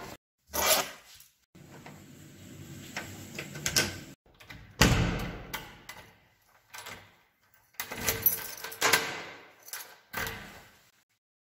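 Keys rattling and a key turning in a door lock, with clicks and knocks from the lock and lever handle; the loudest is a thump about five seconds in, with another burst of rattling near the end.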